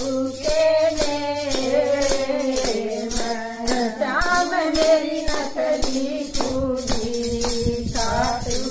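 A woman singing a Hindi devotional bhajan to Khatu Shyam in a full voice, with steady rhythmic hand-clapping about three claps a second.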